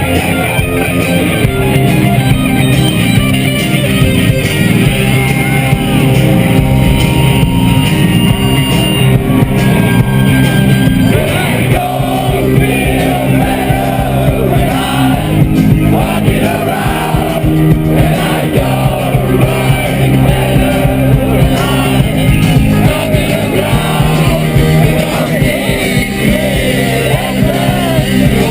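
Loud rock music with guitar, bass and drums, and shouted singing that comes to the fore about halfway through.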